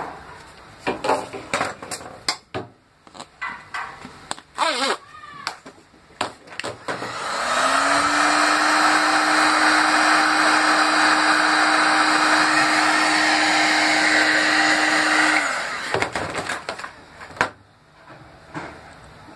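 Black & Decker heat gun switched on about seven seconds in, its fan motor spinning up to a steady hum with a rush of air, run for about eight seconds to soften PVC electrical conduit for bending, then switched off suddenly. Before it, clicks and knocks of the conduit and its coiled bending spring being handled.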